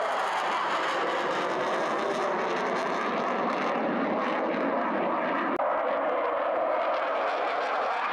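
Dassault Rafale's twin Snecma M88 turbofans running in afterburner during a display pass: a loud, steady jet rumble.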